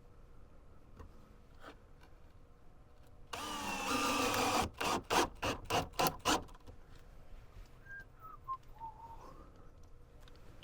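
Cordless drill driving a screw into the wooden cabinet frame: one run of about a second and a half with the motor pitch rising, then about six short trigger pulses to seat the screw.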